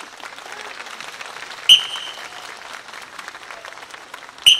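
Audience applauding, a dense patter of many hands clapping. Two short, sharp high-pitched rings cut through it, about three seconds apart.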